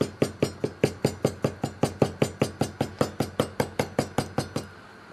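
Kitchen knife striking rapidly through a raw chicken breast onto a wooden cutting board, about five even strokes a second, as the meat is scored so the seasoning can get in; the strokes stop shortly before the end.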